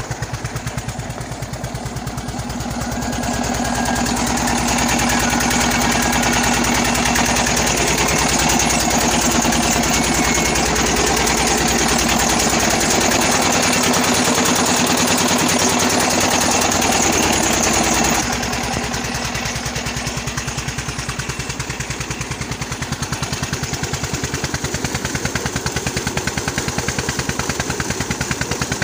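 Single-cylinder Peter diesel engine driving an irrigation water pump, running steadily with a fast even train of sharp exhaust beats. It is running with its injector nozzle freshly loosened after being set too tight, which had made it smoke heavily. The beat gets louder a few seconds in, then drops suddenly to a lower level about two-thirds of the way through.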